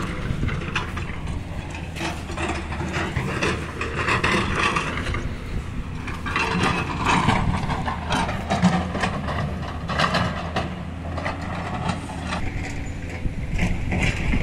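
An excavator's diesel engine runs steadily under an irregular clatter and crunching of rocks and gravel.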